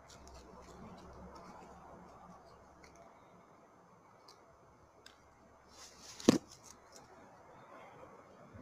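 Faint background with scattered light clicks, and one sharp, loud knock about six seconds in.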